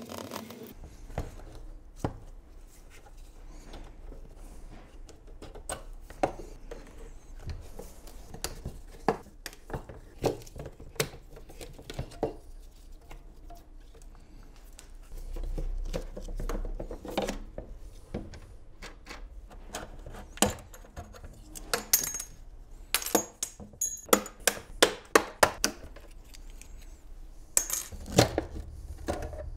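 Clicks, taps and light clatter from a car headlight's plastic housing, small screws and a screwdriver being handled on a steel workbench as the headlight is taken apart. The taps come in quick runs, busiest past the middle.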